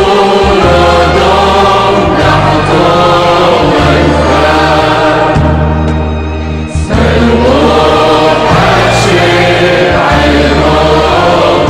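Choir singing slow, sustained music over low held chords that change every second or so, with a brief break about two-thirds of the way through.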